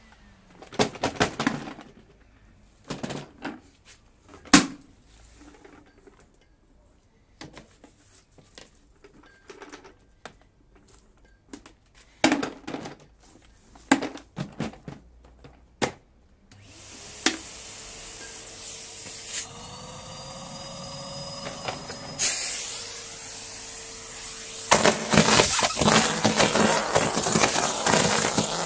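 Scattered dry crackles and clicks with quiet gaps between them. Then a Numatic Henry 160 vacuum cleaner's motor comes up to speed, about two-thirds of the way in, and runs steadily with a humming tone. In the last few seconds dry leaves crackle and rattle loudly as they are sucked up the hose.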